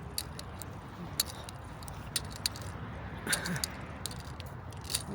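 Outdoor ambience: a steady low rumble with scattered light clicks and taps, and a brief faint voice a little over three seconds in.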